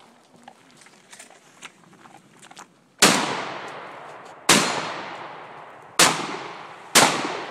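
Four gunshots from a shoulder-fired long gun, each followed by a ringing echo that dies away. The first three come about a second and a half apart and the fourth a second after the third, after a few faint clicks.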